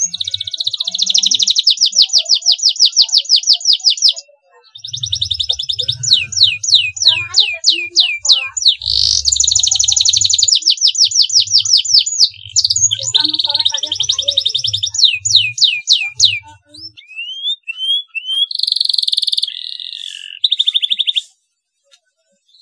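Domestic canary singing fast trills of rapidly repeated high notes with rolls and chirps. There is a short break about four seconds in, and the song cuts off shortly before the end. It is a short-phrase lure song, used to coax a stressed canary into singing.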